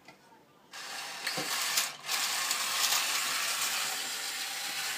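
Vintage 1960s Daiya tin toy missile tank's mechanism running, a steady clicking and whirring of its gears that starts just under a second in and breaks off briefly near two seconds.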